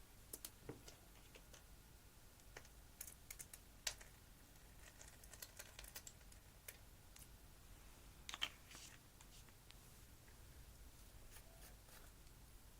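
Slime being handled, giving faint scattered clicks and small pops at near-silent level, with a louder cluster about 4 s in and another about 8.5 s in.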